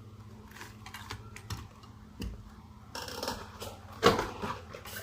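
Scattered light clicks, taps and rustles of a die-cast model and its packaging being handled while it is unpacked, with a louder rustle about four seconds in.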